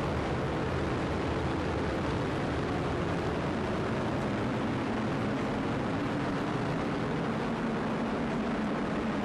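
Atlas V rocket climbing away just after liftoff, its RD-180 main engine and two solid rocket boosters firing: a steady, even rumble with no change in loudness.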